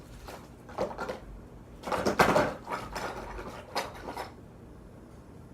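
Small plastic slime-kit containers and bottles being picked up, set down and rummaged through, making a few short clatters and rattles, the loudest about two seconds in.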